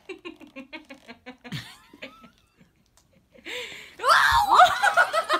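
Toddler giggling in quick short bursts, about six a second. About three and a half seconds in comes a loud, high, wavering shriek from the toddlers, with a dull thump as one tumbles backwards onto the carpet.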